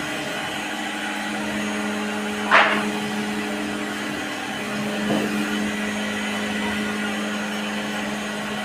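CNC router spindle running steadily while cutting PVC board, a constant motor hum, with a short louder burst of cutting noise about two and a half seconds in and a weaker one about five seconds in.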